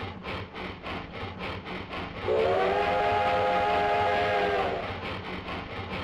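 Steam locomotive chuffing at about four beats a second, then a chime whistle of several notes at once, blown for about two and a half seconds from a little past two seconds in; the whistle sounds again right at the end.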